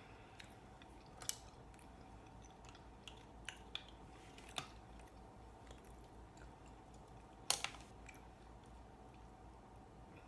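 Eating a seafood boil of shrimp and mussels: scattered sharp clicks and crunches of shells and bites, with the loudest a quick double snap about three-quarters of the way through, over faint chewing.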